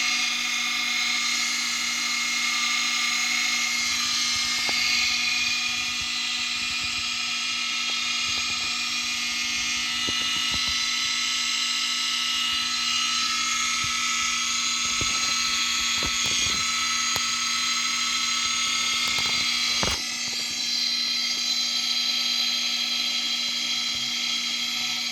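Gusher 8P3-XL coolant pump's 1/4 HP three-phase electric motor running steadily, a high-pitched whine over a low hum, with a few light clicks in the middle.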